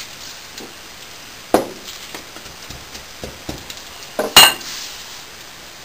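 Wooden dowel ramming water-glass core sand into a pipe: a few sharp knocks over the rustle of sand being pushed in by hand. The loudest knock comes about four seconds in and rings briefly.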